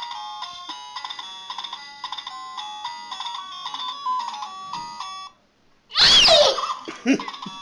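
Electronic toy melody of quick beeping notes, stepping up and down in pitch. It breaks off about five seconds in. A baby then lets out a loud gliding squeal, and the beeping tune starts up again near the end.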